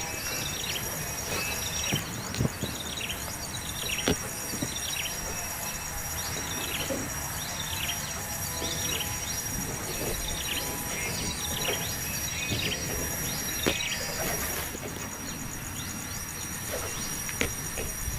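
Small birds chirping over and over, short calls that sweep downward in pitch, over a steady high-pitched insect drone with a fast pulsing trill.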